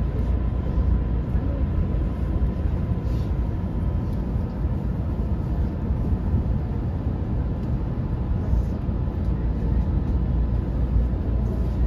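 JR West 227 series electric train running on the line, heard from inside its driver's cab: a steady low rumble with a faint steady high tone over it.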